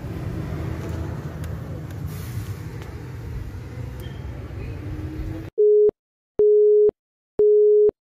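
Low, steady background rumble, then three identical short electronic beeps about a second apart, each a single mid-pitched tone: a transition sound effect.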